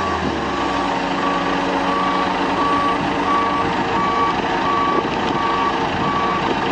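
Heavy construction machine's backup alarm beeping steadily, about three beeps every two seconds, over the running noise of heavy machinery.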